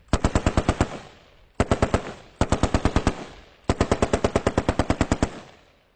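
M60 7.62 mm machine gun firing four bursts of automatic fire at about ten rounds a second, each burst dying away in an echo. The last burst is the longest, about a second and a half.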